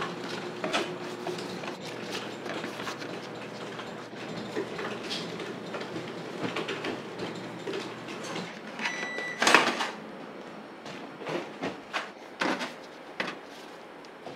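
Bakery handling noises: a run of knocks, clicks and clatters from metal loaf tins and baking trays being moved and slid into a rack, the loudest clatter a little over halfway through. A steady low hum from kitchen equipment runs underneath and stops about two-thirds of the way in.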